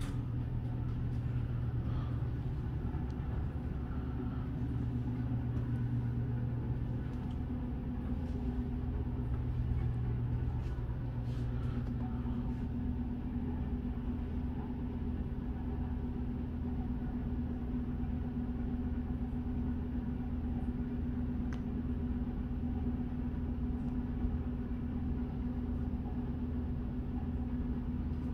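A steady low hum with a few faint clicks over it.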